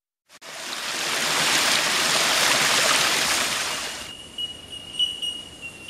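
A long whooshing rush of noise swells up and fades away over about four seconds. After it, a faint steady high-pitched tone carries on.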